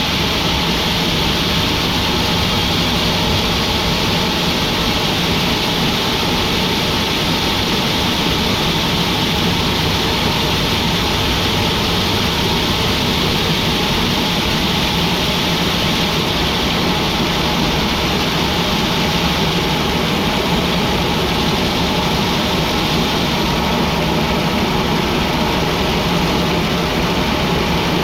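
Sawmill machinery running steadily: a loud, continuous drone with no breaks.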